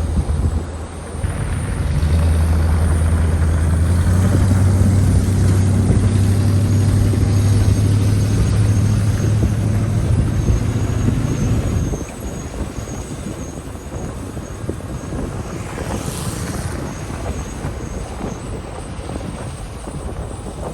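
Off-road wrecker truck's engine running steadily under load while towing, dropping off sharply about twelve seconds in to a lower rumble, with a brief hiss a few seconds later.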